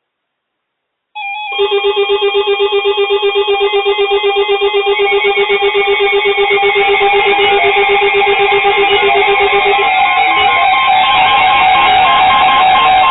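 Several weather alert radio receivers sounding their electronic alarms at once, set off by a tornado warning on NOAA Weather Radio. A loud layered mix of beeping and warbling tones starts suddenly about a second in, and a lower pulsing beep drops out about ten seconds in.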